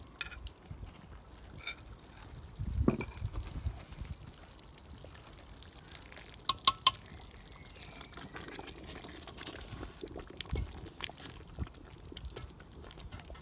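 Thick stew poured from a ladle back into a cauldron and stirred, with liquid plopping and trickling, and a quick run of three sharp clinks about halfway through.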